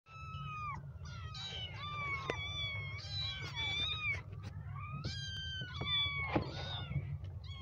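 Several small kittens meowing over one another in high, repeated mews, many dropping in pitch at the end, over a steady low hum.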